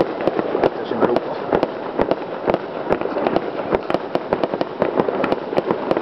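Aerial fireworks bursting in a rapid, unbroken barrage of bangs and crackles, several a second.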